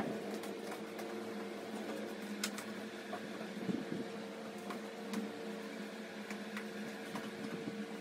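Steady low hum of a household appliance in a small room, with occasional faint clicks and taps.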